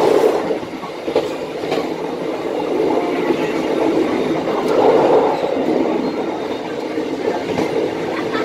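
Train running along the rails at about 80–85 km/h, heard from on board: a steady rumble of wheels on track with occasional sharp wheel clicks.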